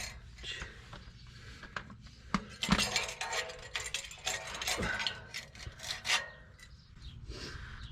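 Irregular metallic clinks and knocks of hand tools and metal parts being handled against one another.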